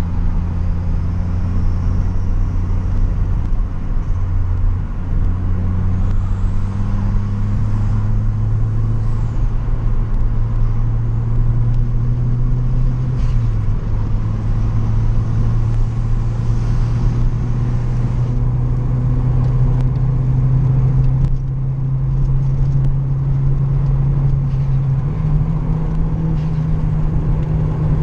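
Turbocharged Toyota Corolla's 4E-FE four-cylinder engine, fitted with a CT20 turbo and a 2.5-inch exhaust, running under light load while driving at moderate, slowly changing revs. The pitch climbs gently, dips about halfway, and steps up again near the end.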